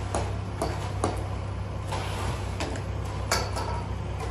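A steady low engine hum, with scattered short knocks and scrapes over it.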